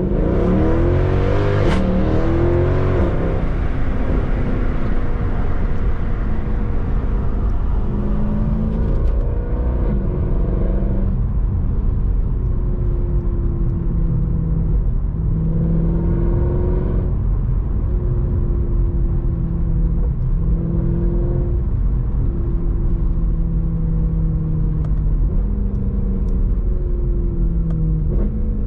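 Mercedes C63 AMG's naturally aspirated 6.2-litre V8 revving hard under acceleration in the first couple of seconds. A sharp crack comes about two seconds in as the revs fall away. It then settles into a steady cruise, its pitch rising and falling a little with the throttle over the rumble of the road.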